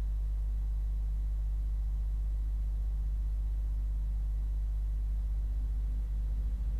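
A steady low rumble or hum that does not change, with no crash or impact heard in it.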